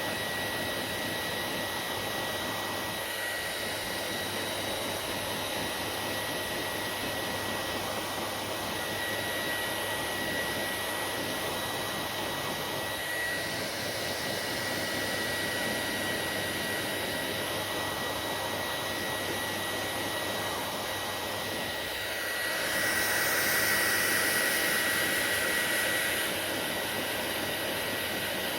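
Hair dryer running steadily: a continuous rush of air with a thin, high motor whine. It swells louder and brighter for a few seconds near the end, then settles back.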